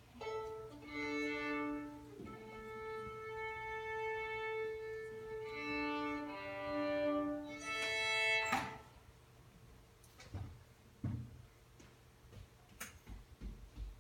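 Solo violin playing long held notes, often two strings at once, ending with a sharp chord about eight and a half seconds in. A quieter pause follows with a few soft knocks.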